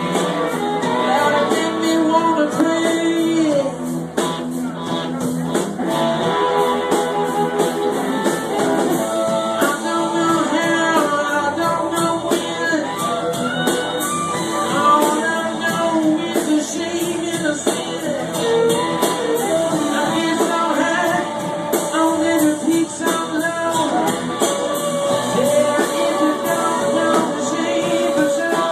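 A band playing a rock-and-roll tune, with guitar prominent.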